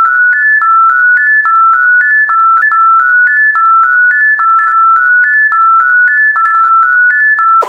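A simple electronic tune in pure beep-like tones: three high notes step upward and drop back, over and over, about three notes a second.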